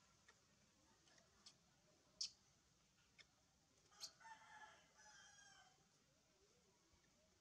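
Near silence with a few faint clicks, and about four seconds in a faint drawn-out animal call lasting about a second and a half.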